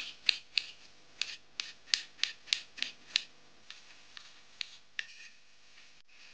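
Kitchen knife dicing a tomato on a bamboo cutting board: a run of sharp knocks as the blade strikes the board, about three a second, then fewer and further apart, stopping about five seconds in.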